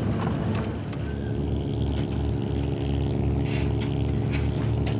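Small fishing boat's engine running steadily at a constant speed, with a few light knocks over it.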